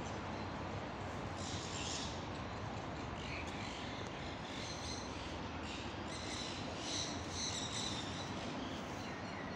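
Birds chirping in short high clusters, a group about one and a half seconds in and a longer run in the second half, over a steady background hiss.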